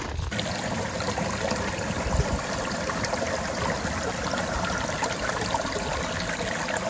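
Small, shallow creek running over rocks, a steady trickle of water.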